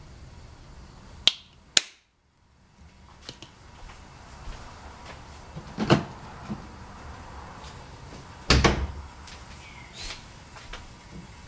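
Two sharp clicks about a second in, the plastic flip-top cap of a squeeze bottle snapping shut, then scattered small knocks with two louder thumps later on.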